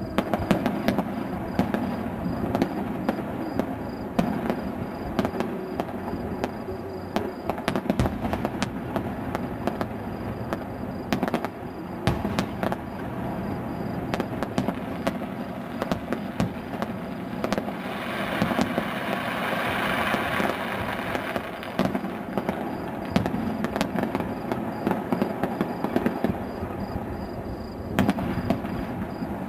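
Fireworks display: aerial shells bursting in a steady, irregular run of bangs over a continuous rumble, with a louder, denser stretch about two-thirds of the way through.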